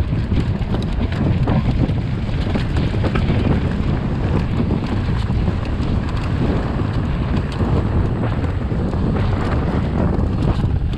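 Wind buffeting the action camera's microphone while riding a mountain bike, a steady heavy rumble with frequent small clicks and rattles over it.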